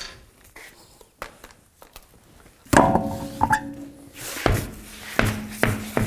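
Knocks and clunks of an alloy wheel and tire being pulled off the hub studs and set down. A louder clatter with a brief metallic ring comes nearly three seconds in, and more thuds follow.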